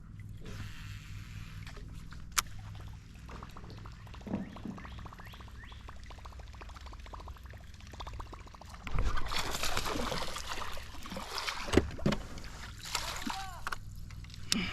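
Water sloshing and splashing around a small boat on a river, with a louder stretch of splashing about nine seconds in.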